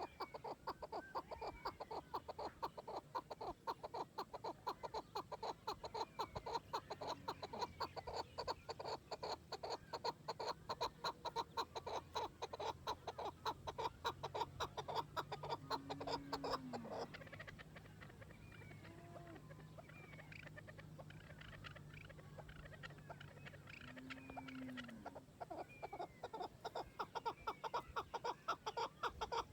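Chukar partridge calling: a long, rapid series of clucking chuk notes that stops for several seconds about two-thirds of the way through and starts again near the end.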